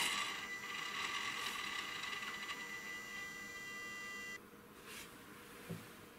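A steady electrical whine of several evenly spaced pitched tones from the bench test equipment. It cuts off abruptly about four seconds in, as the setup is switched back to ambient pressure. A faint click follows near the end.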